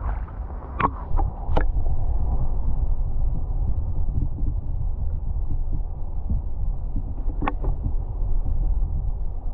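Low, steady muffled rumble of a camera submerged in a shallow pond, with a few sharp knocks in the first two seconds and one more near the end.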